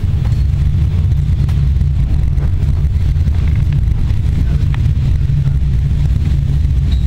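Steady low rumble of a regional passenger train running at speed, heard from inside the carriage, with a few faint clicks from the wheels on the rails.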